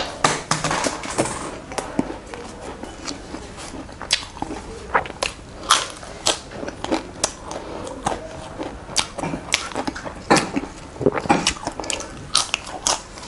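Close-miked eating sounds: chewing, biting and lip smacks while eating with the fingers, heard as irregular sharp clicks and smacks throughout.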